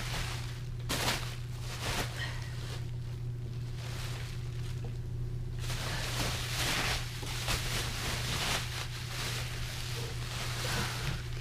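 Cardboard box and packing pieces rustling and scraping, with a few knocks, as the reel-to-reel deck is lifted out of its shipping box; a steady low hum runs underneath.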